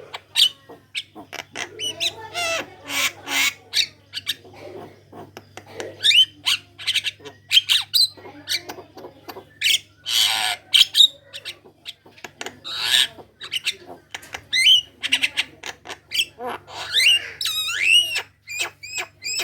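Javan myna chattering at full song: a fast, varied stream of harsh squawks, clicks and whistled glides with hardly a pause. A steady low hum runs underneath.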